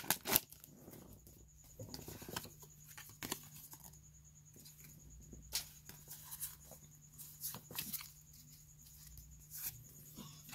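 Pokémon trading cards being handled and flipped through one by one: soft, scattered flicks and slides of card stock, with a short crinkle of the foil booster wrapper at the start.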